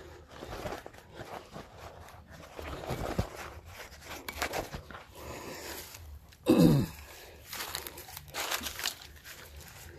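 Digging in soil with a hand tool: irregular scraping and crunching of earth and stones. About six and a half seconds in, one brief loud low sound drops sharply in pitch.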